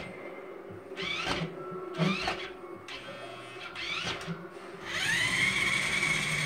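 Small electric motor of a toy remote-control car whining in short spurts that rise in pitch, then spinning up and running at a steady pitch from about five seconds in.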